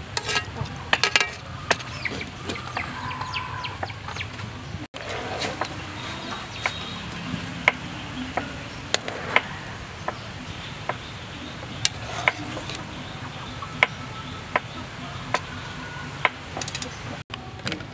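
Metal tongs clicking and clinking against a wire mesh strainer and the wok rim as noodles are lifted out of boiling water, with chickens clucking in the background.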